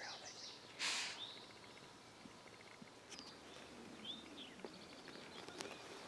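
Songbirds chirping and calling sparsely in the open, with one short, loud breathy burst of noise about a second in.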